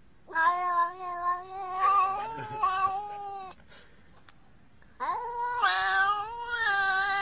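A domestic cat yowling: a long, drawn-out, wavering cry of about three seconds, then after a short pause a second long cry starting about five seconds in.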